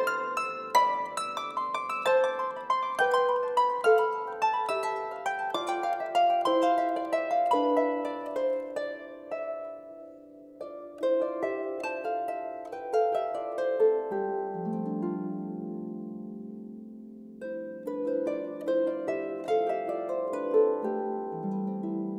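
Concert harp played solo: quick runs of plucked notes at first, then slower low notes left ringing from about halfway, and a fresh flurry of plucking near the end.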